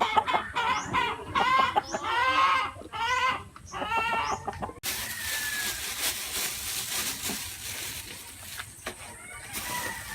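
A gamecock (fighting rooster) giving a run of agitated clucking, squawking calls. About halfway through, the sound changes abruptly to a steady hiss.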